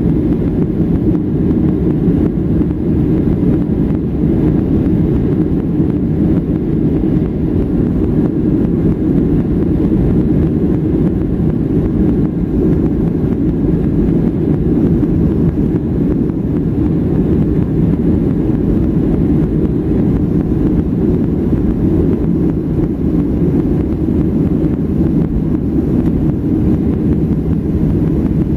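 Steady, deep engine and rolling noise inside the cabin of a Boeing 737-800 during its takeoff roll, with the CFM56 turbofans at takeoff power.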